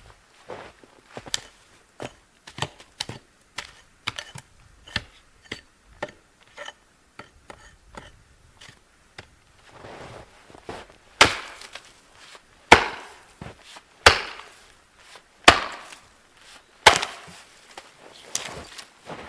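Wood being chopped: a run of quick, light knocks, then about six heavy chopping blows about a second and a half apart in the second half.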